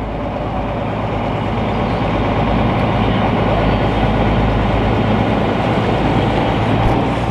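A fishing trawler's diesel engine running with a steady low hum, growing a little louder over the first few seconds.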